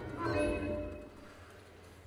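Baritone saxophone with live electronics in a contemporary piece: a loud, pitched note attacked just after the start that fades within about a second, leaving a quieter low sustained sound.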